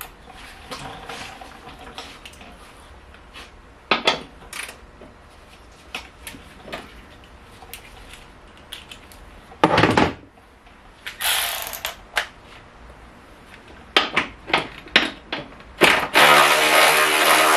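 Pneumatic air ratchet undoing a bolt in short bursts, with a longer, loud run with hissing exhaust air near the end. Clicks and knocks of the socket and metal parts being handled come in between.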